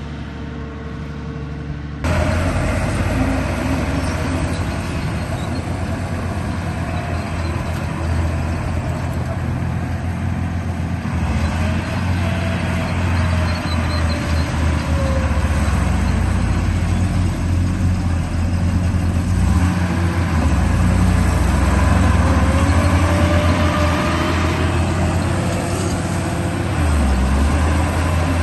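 Radio-controlled bulldozer running: a steady low engine-like rumble with a motor whine that rises and falls as it drives. About two seconds in, it suddenly gets louder.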